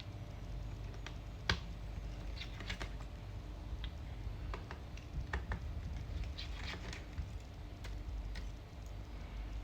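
Scattered small clicks and taps of a precision Torx screwdriver and tiny screws being worked out of a MacBook Pro's internals and set down, with the sharpest click about a second and a half in.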